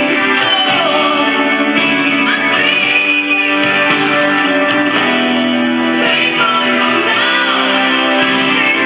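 Rock ballad music: an electric guitar plays a melodic lead with bent notes over a sustained band backing.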